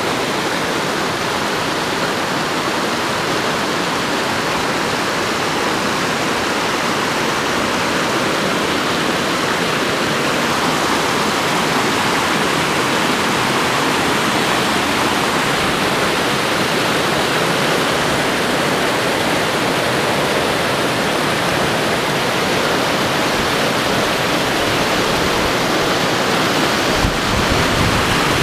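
Small waterfall cascading over boulders in a forest stream: a loud, steady rush of falling and churning white water.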